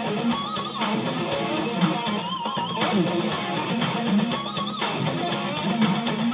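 Music with strummed guitar over a steady low bass part, and a higher melody line that wavers in pitch.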